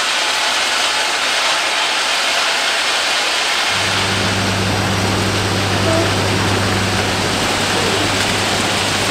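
Railway track-maintenance machine working: a loud, steady rushing machine noise, joined about four seconds in by a steady low hum.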